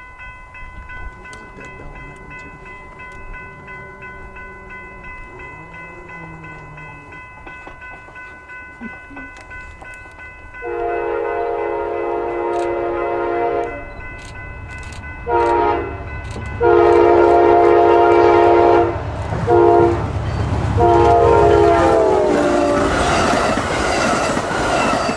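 Amtrak passenger train approaching, its locomotive horn sounding a series of long and short blasts over a growing low rumble. Near the end the train passes close by with loud wheel and rail noise from the bi-level Superliner cars.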